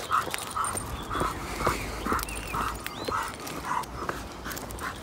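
English springer spaniel puppy panting in a steady rhythm, about two breaths a second, from the effort of pulling hard on the lead.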